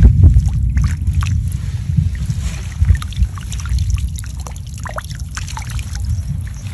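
Shallow field water sloshing as a metal-framed hand net is scooped through weeds and lifted out, then water trickling and dripping through the mesh. A splash at the start is the loudest moment, with a steady low rumble under the dripping.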